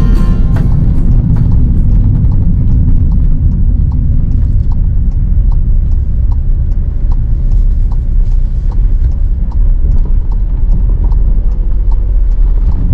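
VW T6.1 campervan driving along a country lane, heard from inside the cab as a loud, steady low road-and-engine rumble. Faint, regular light ticks come about twice a second.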